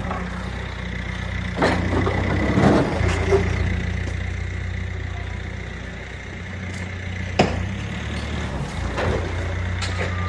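A vehicle engine running steadily at low revs, with a few sharp metallic knocks, the sharpest about seven seconds in.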